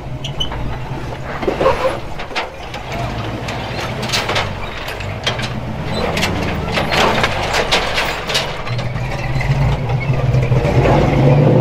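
Leaf-sprung one-ton square-body tow truck's engine running at low speed as it crawls over slickrock ledges, with scattered knocks and clatter from the truck on the rock. The engine grows louder over the last few seconds.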